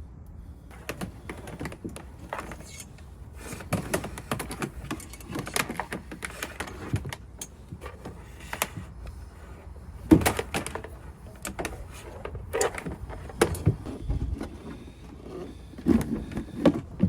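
Irregular clicks, taps and rustles of hands handling wires, pushing fish finder wires through a plastic strain-relief fitting into a box. A louder cluster of knocks comes about ten seconds in and again near the end.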